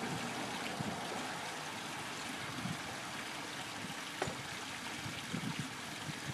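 Swimming-pool water trickling steadily, with a few faint short knocks.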